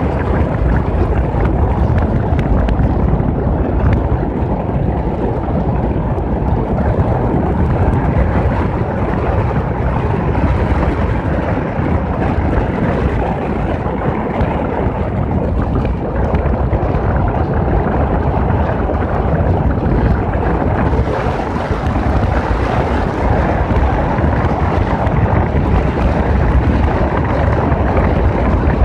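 Steady wind rush and low rumble on the microphone of a moving motorcycle, with no change throughout.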